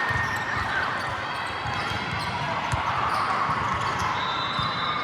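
Gym ambience: balls thudding on a hard court floor again and again, amid faint voices and shoe noise echoing in a large hall.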